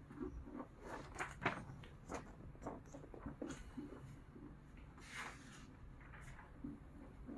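Pages of a thick Weekly Shōnen Jump manga magazine being leafed through: faint, irregular paper rustles and flicks, with a sharper page snap about a second and a half in and a longer swish of paper about five seconds in.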